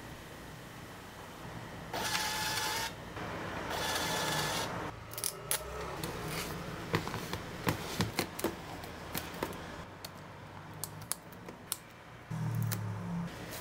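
Small label printer printing twice, two buzzing runs of about a second each, followed by light clicks and taps as plastic spice container lids are handled and a printed label is pressed on.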